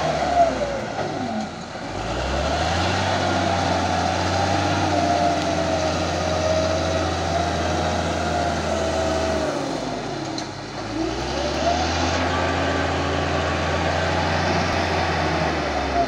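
Cat D6G bulldozer's six-cylinder diesel engine running under load while the dozer works, its revs falling off and climbing back twice, about a second in and again about ten seconds in.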